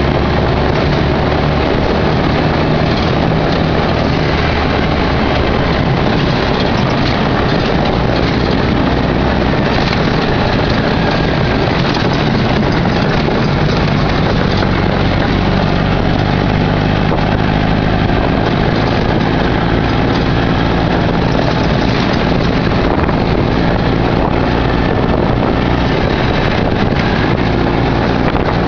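Off-road sand buggy driving over a rough dirt trail: the engine runs steadily under a constant rush of wind and road noise, its note shifting in pitch a few times.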